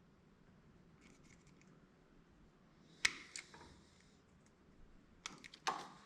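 Hand wire tool snipping 14-gauge copper wire: a few faint clicks, one sharp snip about three seconds in with a brief rustle after it, then a quick run of snips and clicks near the end.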